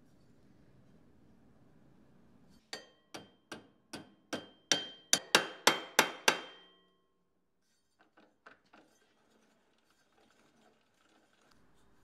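A hammer striking metal in a quick series of about eleven blows, growing harder, each with a short metallic ring; a few faint clicks follow.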